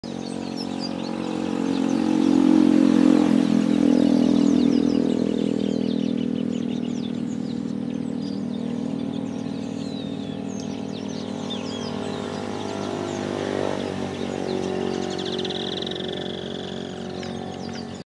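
A motor vehicle's engine runs throughout, swelling to its loudest about three seconds in and then easing off. A flock of papa-arroz birds chirps and chatters over it.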